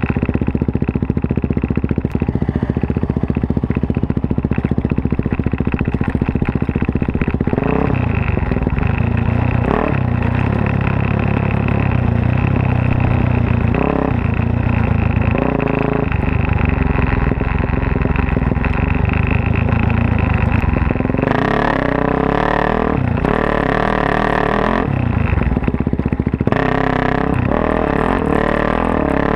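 Big-bore Suzuki DR-Z400S single-cylinder four-stroke dirt bike engine with a full Yoshimura off-road exhaust, running as it is ridden off road, its note changing with the throttle. From about two-thirds of the way through it revs higher, rising and falling.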